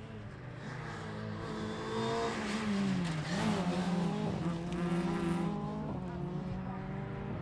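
Nissan Micra rally car's engine running hard as the car passes at speed. The engine note falls sharply about three seconds in as it goes by, then holds steady.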